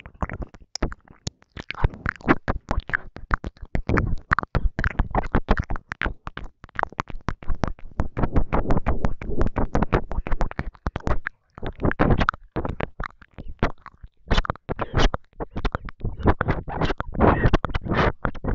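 Close-miked ASMR mouth sounds: a rapid, dense run of wet clicks and smacks mixed with breathy, unintelligible whispering, with a brief pause about eleven seconds in.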